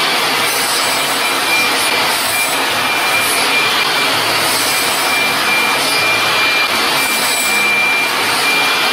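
Table saw running and cutting wood boards to size: a steady loud noise with a thin, steady high whine from the spinning blade.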